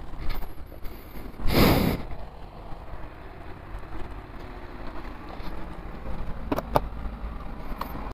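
Yamaha FZ25 motorcycle's single-cylinder engine running low and steady. A loud rush of noise comes about one and a half seconds in, and a few sharp clicks come near the end.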